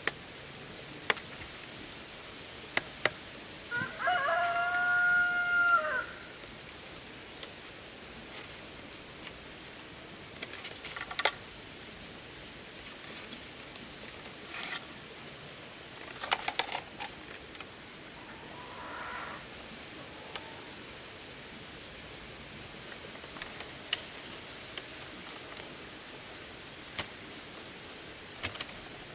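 A rooster crows once, a single arched call about two seconds long, a few seconds in; a fainter call follows later. Scattered sharp clicks and knocks come and go around it.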